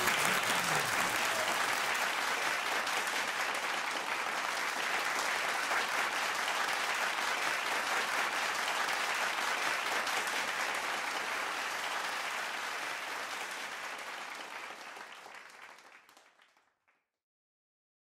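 Audience applauding steadily at the close of a live song. The applause fades out to silence near the end.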